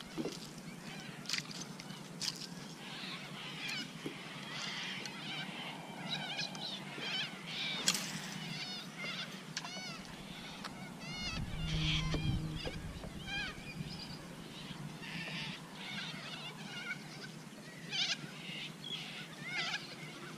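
Wild birds calling around the water: many short, high chirps and whistled notes overlapping, with a brief low rumble about halfway through.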